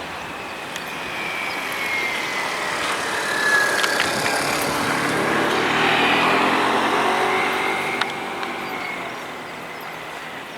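A motor vehicle passing by. It grows louder to a peak about six seconds in, then fades, its pitch dropping as it goes past.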